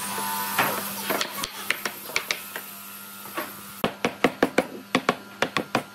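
Wooden mallet knocking on reclaimed hardwood planks, tapping the pieces together to seat them. Scattered knocks from about a second in, then a quick run of louder knocks near the end.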